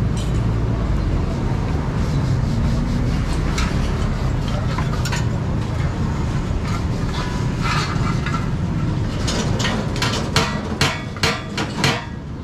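Steady low rumble of vehicles, with scattered clicks. In the last few seconds comes a quick run of sharp hammer taps, a few a second, as in hand work on a radiator.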